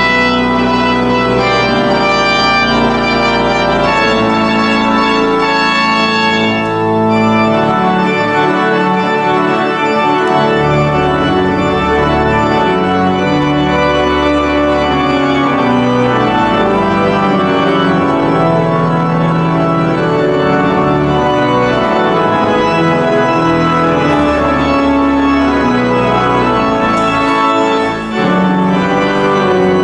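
Church organ playing sustained chords over a moving low pedal bass, loud and full.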